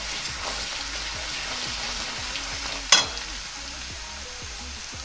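Ginger and garlic paste sizzling in hot oil in a steel kadhai while a steel spoon stirs it. About three seconds in there is one sharp metallic clank of the spoon against the pan, and after it the sizzle is quieter.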